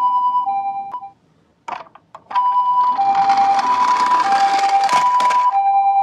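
Japanese-style ambulance siren sounding its two-tone hi-lo 'pii-poo' pattern, the high and low notes alternating about every 0.6 s. It breaks off about a second in, a few clicks follow, and it resumes with a hiss under it.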